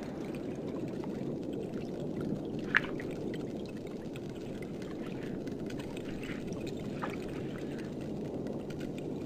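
Underwater ambience: a steady low rush of water with faint crackling, broken by one sharp snap about three seconds in and a fainter one about seven seconds in, the snaps of pistol shrimp claws.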